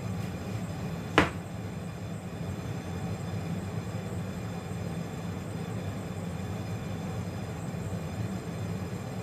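Steady low mechanical hum from the kitchen stove area while an empty stainless steel pan heats over a lit gas burner, with one sharp click about a second in.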